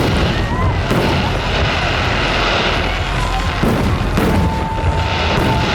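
Aerial fireworks bursting one after another: a continuous rumble of booms with sharp bangs about a second in and again around four and five seconds in. A thin, steady whistle holds for about two seconds in the second half.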